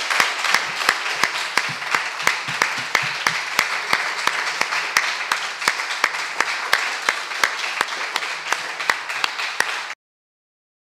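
Audience applauding, with one nearby pair of hands clapping sharply about three times a second above the general clapping. The applause cuts off suddenly near the end.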